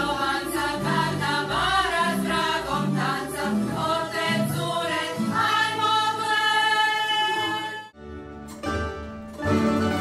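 Mixed choir singing in several parts, closing on a long held chord that stops about eight seconds in. Near the end, after a short quieter gap, a tamburica orchestra starts playing plucked strings.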